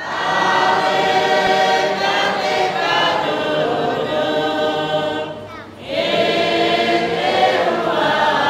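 A choir singing, with held, many-voiced notes; the singing starts suddenly at the beginning and pauses briefly between phrases about five and a half seconds in before going on.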